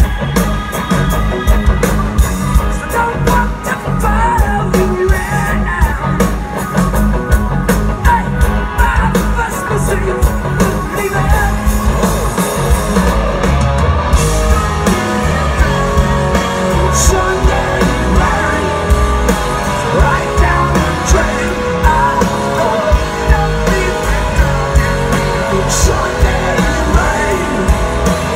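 Loud live rock band playing: pounding drums, electric guitars and a male lead vocal sung by the drummer from his kit, heard from the crowd through the arena PA.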